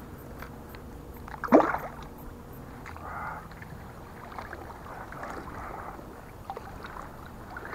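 A single splash about one and a half seconds in as a largemouth bass goes back into the water beside a kayak, then a few soft strokes of a kayak paddle dipping and swishing through the water, drips falling from the blade.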